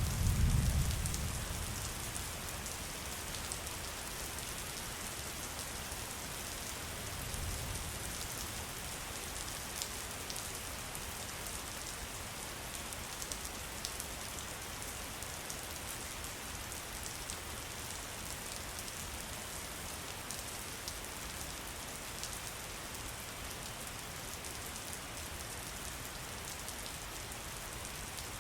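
Steady rain falling, with fine drop ticks over a constant hiss. A low rumble swells at the very start and a weaker one comes around seven seconds in.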